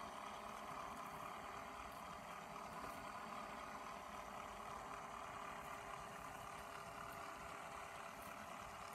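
Small geared electric motor driving a wooden Timberkits beam engine model through a belt, running with a steady whirring hum.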